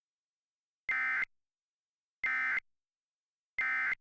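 Emergency Alert System end-of-message signal: three short bursts of buzzing digital data tone (the SAME "NNNN" code), evenly spaced with about a second of silence between them. It marks the end of the tornado warning message.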